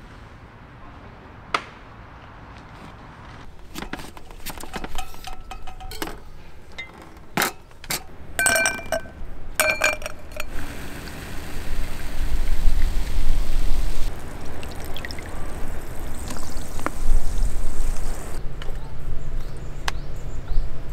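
A run of light clinks with short ringing tones, several in quick succession, then from about halfway a louder, steady rushing noise with a deep rumble.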